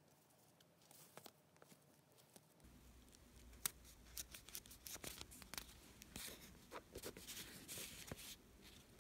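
Paper envelopes being handled: soft rustling and small clicks of paper, beginning about three seconds in after near silence.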